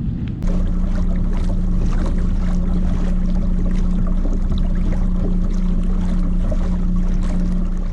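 Minn Kota electric trolling motor running at a steady speed with a constant hum, water rushing along the kayak's hull. It comes in sharply about half a second in.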